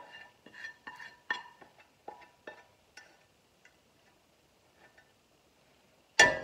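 Spatula tapping and scraping against a nonstick frying pan and a plate as scrambled eggs are pushed off, a quick string of ringing clinks over the first three seconds. Near the end the pan is set down on the gas stove's grate with one loud clank.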